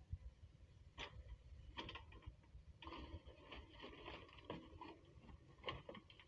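Faint low rumble with scattered clicks and crackles of stones and soil shifting as a JCB 3DX backhoe bucket digs into rocky ground, busiest around the middle.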